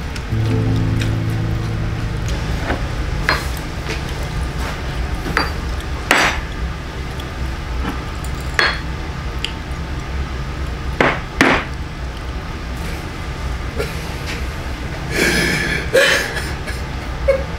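Tableware at a laden restaurant table: dishes, chopsticks, glasses and a glass soju bottle knocking and clinking. There are a dozen or so separate sharp clinks and a longer clatter near the end, over a steady low hum.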